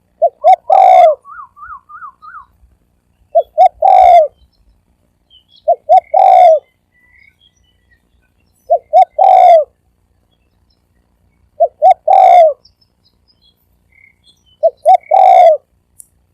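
Deep-voiced male spotted dove cooing six times, about every three seconds; each call is two short notes and then a longer drawn-out coo. A brief wavering trill sounds just after the first call.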